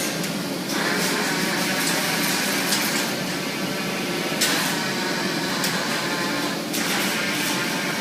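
Steady metalworking factory-floor noise of machinery running, with a few short sharp hissing or clanking sounds about three, four and a half and near seven seconds in.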